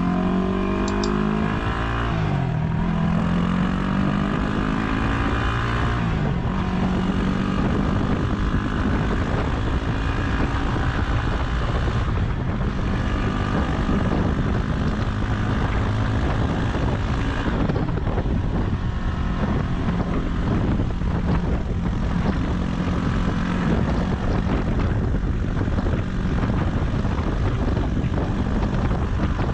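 Yamaha WR250R's single-cylinder 250 cc engine running at road speed, with wind and road noise. The engine note falls and climbs again a couple of times in the first several seconds, then holds fairly steady.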